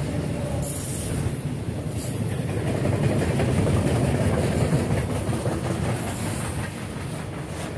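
Container freight train rolling past: a steady rumble and clatter of wagon wheels on the rails, with thin high squeals coming in briefly a few times.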